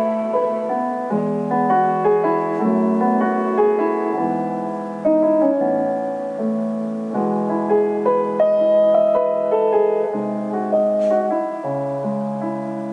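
Piano music: a melody moving note by note over held chords.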